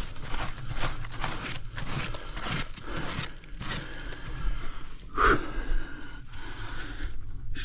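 Digging by hand: a tool strikes irregularly into hard soil and tree roots, two or three blows a second, one stronger knock about five seconds in.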